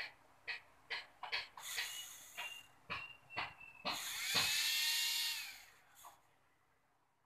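Small brushed DC motor with a plastic pulley on its shaft, its bare wire leads tapped on and off: a string of sharp clicks with short whirring spurts. About four seconds in it spins up with a slightly rising whine, runs steadily for about a second and a half, then stops.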